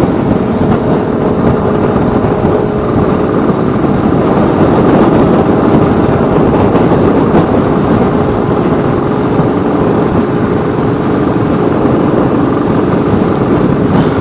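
Motorcycle engine running steadily while riding, mixed with a constant rush of wind and road noise.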